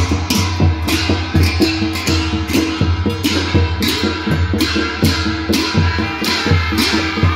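Himachali folk band music: shehnai-type reed pipes sound held tones and a melody over a steady drum beat of about three strokes a second.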